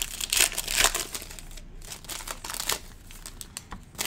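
Foil trading-card pack crinkling loudly as it is torn open. After about a second and a half this gives way to quieter rustles and clicks as the clear acetate cards are slid out and handled.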